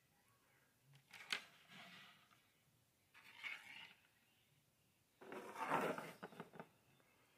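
Small plastic action-figure accessories handled and moved about on a wooden tabletop: a sharp tap about a second in with short scrapes, another brief scrape, then a longer scrape with several small clicks near six seconds as pieces slide and are set down.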